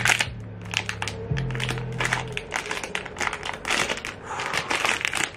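Foil blind-box bag crinkling and tearing in the hands as it is opened, a dense run of sharp crackles, over low background music that fades out partway through.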